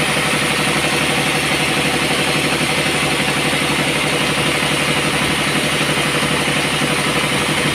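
Sawmill machinery running steadily, an engine with a fast, even pulse and no change in speed.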